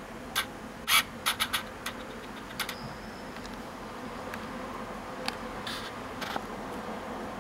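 Steady low hum of kitchen background noise, with light sharp clicks and taps: a quick cluster of four or five between about one and two seconds in, and a few more, fainter, later on.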